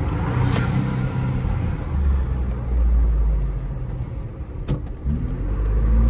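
Ford Bronco's turbocharged engine fitted with an Injen cold air intake, heard from inside the cabin, its note rising and falling through a few throttle swells. There is a brief hiss about half a second in and a single sharp click a little before the end.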